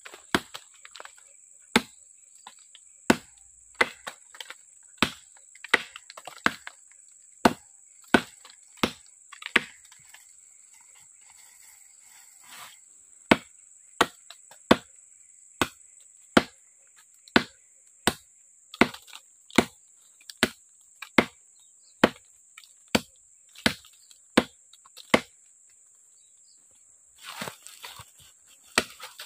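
Short, heavy parang (machete) chopping into the trunk of a small tree: a long run of sharp wooden chops, a little over one a second, with a couple of brief pauses.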